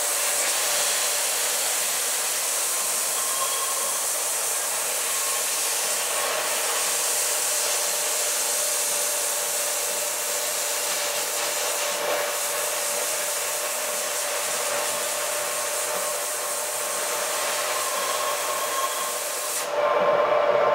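A small circular saw blade on a milling-machine spindle cuts into a wooden shotgun stock, making a steady hiss with a faint hum, while compressed air is blown on the blade to cool it. The sound gets louder near the end.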